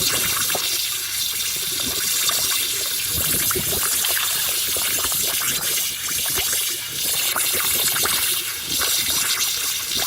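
Water running and trickling into a dug-out hole around a buried pool pipe, with a steady splashing hiss dotted with small irregular drips.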